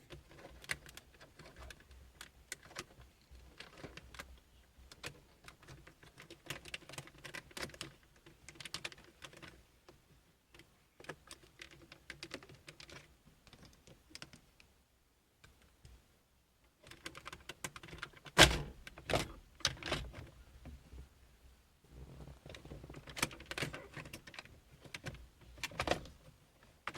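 Plastic car console trim being worked loose by hand: scattered small clicks, taps and scrapes of the trim panel and its clips, with one louder knock partway through.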